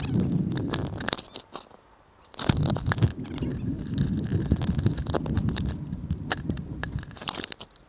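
Stunt scooter wheels rolling over hard ground with scattered clicks and clacks. The rolling drops out for about a second, then comes back with a sharp clack, like a landing, and rolls on.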